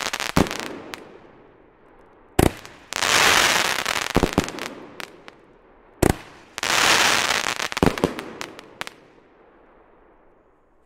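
Aerial fireworks bursting into golden crackling stars: two sharp bangs about four seconds apart, each followed by about two seconds of dense crackling pops that fade away. The tail of an earlier shot's crackle is dying at the start, and the last crackle dies out near the end.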